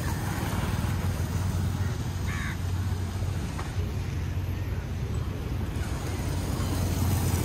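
Steady low rumble of street traffic, with a brief higher sound about two seconds in.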